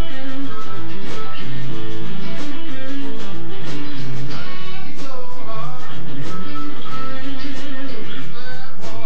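Live blues band playing, led by a Telecaster electric guitar, with notes bent up and down in pitch about halfway through and again near the end.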